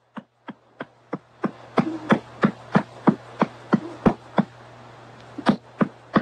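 A newborn baby feeding, sucking with a sharp rhythmic click about three times a second and a short pause near the end; the mother says it just sounds like that.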